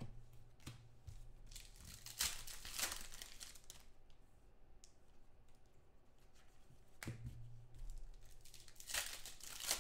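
Trading cards and their packaging being handled on a table: a few short bursts of crinkling and rustling, the strongest about two to three seconds in and again near the end.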